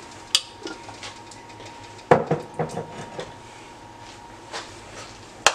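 Kitchen utensils and containers clinking and knocking around a pot: a sharp click near the start, a cluster of knocks about two seconds in, a few lighter taps, and another sharp click at the end.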